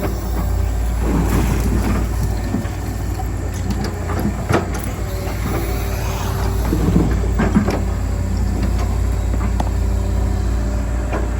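Hydraulic excavator's diesel engine running steadily under load, with a few sharp metal clanks and short creaks from the working arm and bucket.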